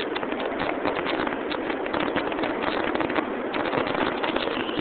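A New York City Subway R142A train moving along the platform, a steady rushing noise full of quick irregular clicks from the wheels on the track.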